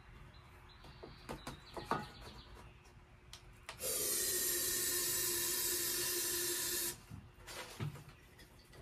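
Aerosol can of starting fluid sprayed in one steady hiss for about three seconds, beginning about four seconds in and cutting off sharply. It primes a Rotax two-stroke snowmobile engine that has failed to turn over on the pull start. A few light handling clicks come before it.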